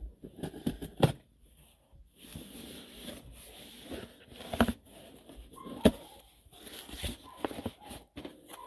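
Cardboard shipping box being opened by hand: the cardboard rustles and scrapes, with several sharp knocks and clicks, the loudest about a second in and about six seconds in.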